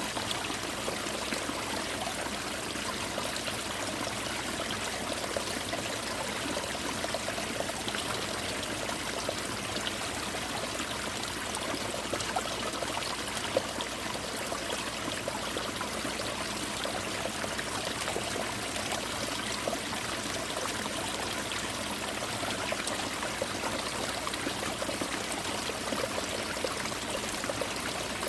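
Winter mountain stream pouring and splashing over ice-covered rocks: a steady rush of water with many fine drips and splashes, like rain.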